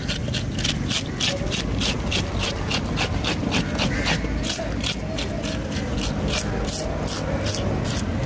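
A hand fish scaler with a toothed blade scraping the scales off a large fish in quick, even strokes, about three to four a second.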